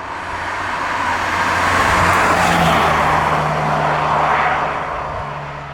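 BMW Z3 3.0 with its M54 straight-six under way at speed: a rush of wind and road noise swells and then fades over a steady engine drone, and the engine note drops about five seconds in.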